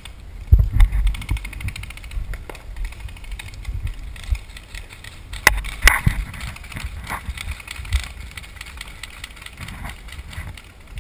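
Low, uneven rumble of wind and movement on a body-worn action camera, broken by a few sharp pops of paintball markers firing. The loudest two pops come about half a second apart, a little past halfway.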